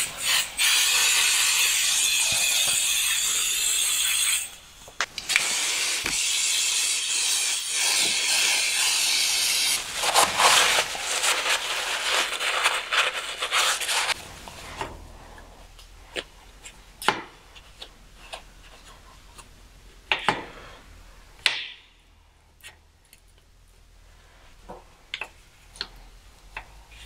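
Gloved hand scrubbing old grease off the gearbox's release-bearing guide sleeve and bell-housing face, a continuous rubbing noise with a few short breaks, then, about halfway through, scattered light scrapes and taps on the metal casing.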